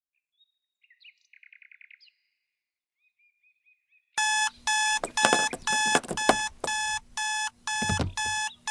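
Faint bird chirps and a short trill, then about four seconds in an electronic alarm clock starts blaring. It gives a rapid series of loud beeps, about two a second. A low thud sounds under the beeps near the end.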